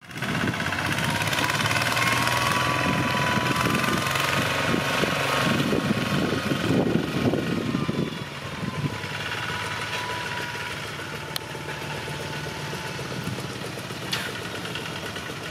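Two-wheel walking tractor's single-cylinder diesel engine running steadily, with a thin high tone above the engine note; it drops somewhat in loudness about halfway through.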